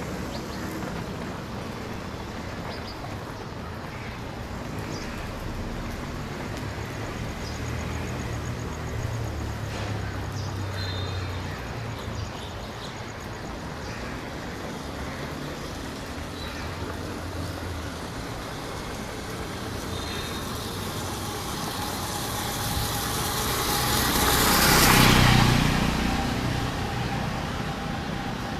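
Road traffic: a low engine hum runs under the street noise, and a vehicle passes close, its noise swelling to a peak near the end and then fading away.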